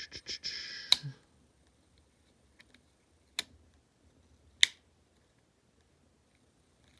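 Tools of a CCM-made 108 mm German army pocket knife being worked against their backsprings: a short scraping ending in a sharp metallic snap about a second in, then two more single snaps about a second apart in the middle.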